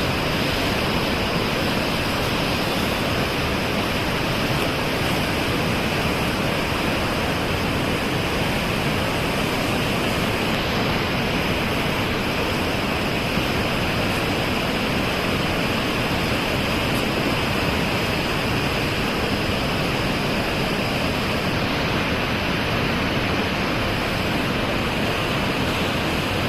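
Floodwater from the open dam gates rushing in a steady, unbroken roar of white water.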